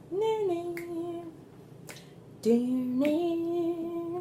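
A woman singing a tune in long held notes, with two finger snaps along with it.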